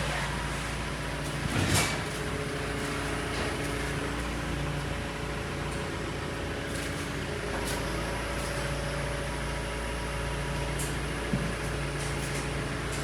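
An engine running steadily at a low hum, with a knock about two seconds in and a smaller one near the end.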